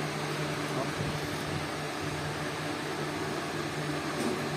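Steady motor hum over an even hiss, as from a household fan-type appliance running.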